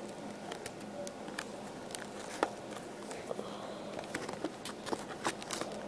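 Clear plastic packaging crinkling and crackling as it is handled and pulled open, an irregular run of sharp little clicks with a louder one about two and a half seconds in.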